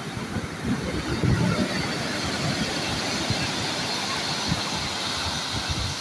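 Sea waves breaking on a pebble beach, foam washing up and draining back over the stones in a steady hiss that grows fuller about a second in. Under it runs an irregular low rumble.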